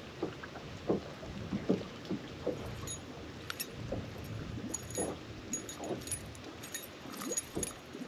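Small water slaps against a bass boat's hull, with light metallic jingling and clicking from about three seconds in as a spinnerbait's blades and hooks are worked free of a bass's mouth.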